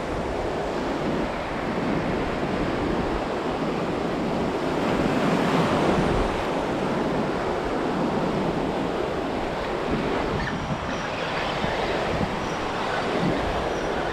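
Ocean surf breaking and washing up the beach: a steady rushing noise that swells a little about halfway through.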